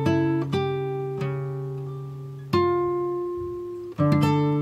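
Background music: slow acoustic guitar picking, each plucked note ringing out and fading before the next.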